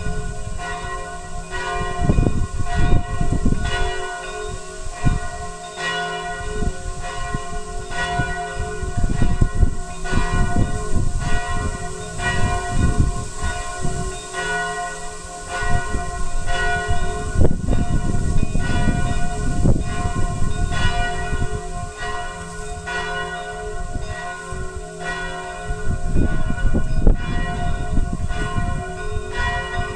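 Several church bells pealing together, a fresh stroke about once a second over the ringing tones of the others, with uneven low rumbling noise underneath.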